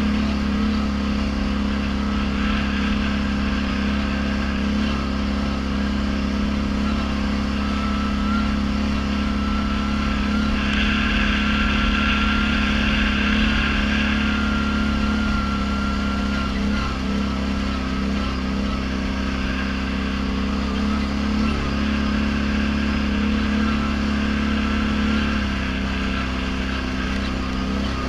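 ATV engine running steadily while riding along a dirt trail, its pitch mostly even with a slight drop near the end. A higher whine joins in for several seconds midway.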